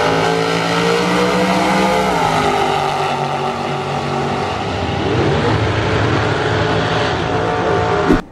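Drag race cars' engines running loud at full throttle down the strip. The engine note climbs for about two seconds, falls away, then climbs again later.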